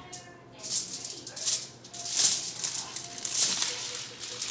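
Sheet of aluminium foil crinkling in repeated bursts as a baby's hand grabs and crumples it.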